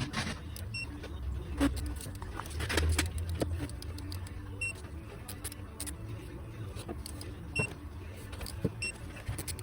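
Scattered clicks and light knocks of hand tools working on an engine's camshaft bearing caps, with a low rumble about two to three seconds in.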